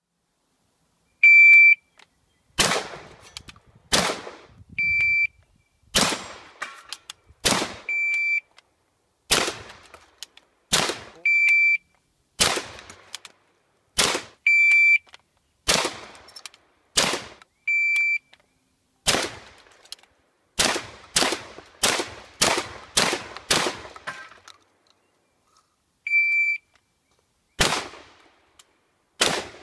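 Electronic shot-timer beeps, each followed by 12-gauge Benelli shotgun shots: over and over a short beep, then two shots a little over a second apart, as single shells are loaded from the belt in a reload drill. About two-thirds of the way through comes a fast string of eight or so shots about half a second apart, then a last beep and more shots near the end.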